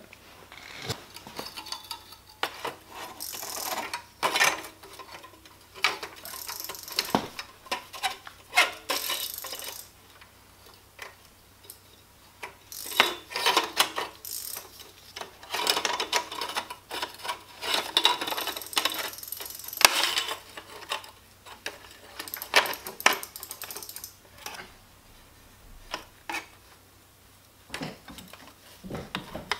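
Metal exhaust pipes and clamps clinking, clanking and scraping against each other and the motorcycle's frame as they are worked into place by hand, still loose and untightened. The sounds come in irregular bursts.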